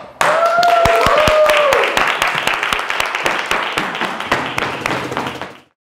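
A small group clapping and applauding, with a voice whooping or cheering over the first couple of seconds. The clapping thins out and stops suddenly near the end.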